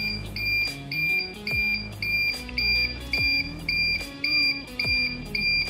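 Buzzer on a Mappi32 ESP32 board sounding as an alarm clock: short, high-pitched beeps repeating evenly about twice a second, the programmed 250 ms on-off pattern. Background music plays underneath.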